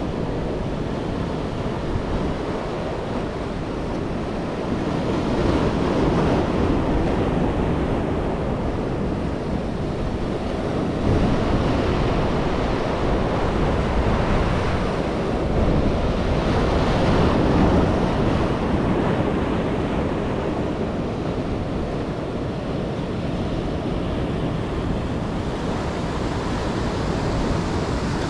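Ocean surf breaking and washing up the beach, swelling louder every few seconds as waves come in, with wind noise on the microphone.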